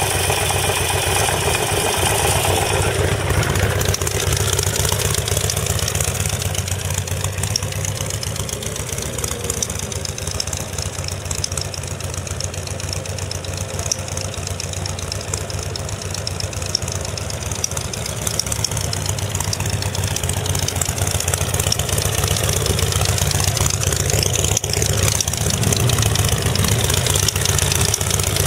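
Harley-Davidson XL1200R Sportster's air-cooled 1200 cc V-twin running steadily at idle through an aftermarket OVER muffler.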